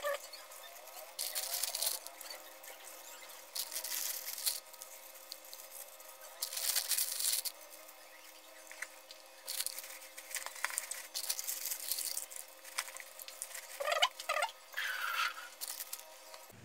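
Salted napa cabbage leaves rustling and crinkling as hands pull them apart and handle them in a plastic basin, in about six or seven separate bursts.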